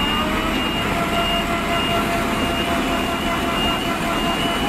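A vehicle engine running steadily, with a high electronic beep repeating on and off over it.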